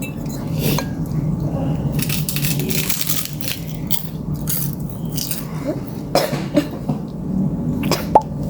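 Scattered clinks and knocks of utensils against a dish while eating noodles, the sharpest about six and eight seconds in, over a steady low hum.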